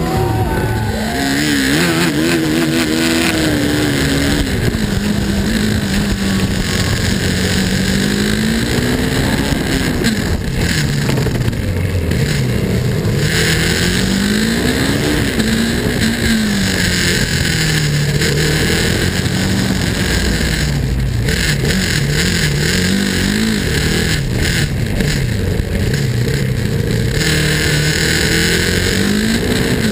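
KTM Duke 390's single-cylinder engine racing, its pitch rising and falling every few seconds as the rider accelerates, shifts and backs off through the corners.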